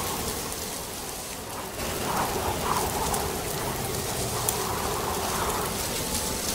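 Steady rain-like hiss of the soundtrack of an intro logo animation, with a few faint wavering tones through it.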